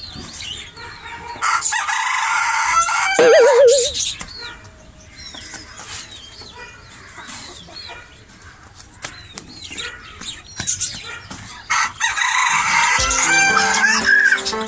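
A rooster crows loudly once, a second or two in, its call ending in a quick warble. Quieter short chirps of small birds follow.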